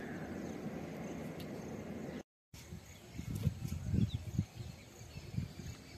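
Outdoor rural background noise: a steady rushing hiss that cuts out for a moment about two seconds in, then quieter ambience with scattered soft knocks.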